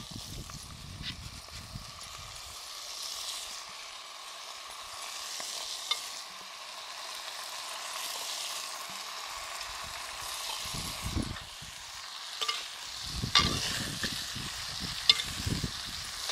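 Raw chicken pieces sizzling and frying in hot oil in a clay pot, with a steady hiss. Chicken drops into the pot in the first couple of seconds, and a metal ladle stirs and scrapes against the pot a few times, mostly in the last few seconds.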